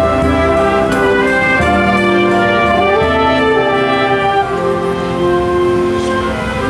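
Junior high school marching band playing live: trombones, trumpets, saxophones and sousaphones sounding long held chords that change every second or two over a low brass bass line.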